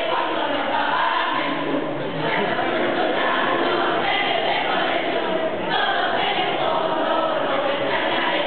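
A large group of students singing a Spanish Christmas carol (villancico) together as a choir, continuously and at a steady level.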